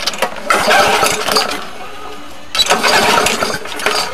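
Briggs & Stratton lawn mower engine cranked twice by its pull-start rope, each pull a second or two of rapid chugging that spins the engine over without firing, because the spark plug is disconnected. The engine is being turned over to clear oil that flooded the carburetor when the mower was tipped, leaving it hydrolocked.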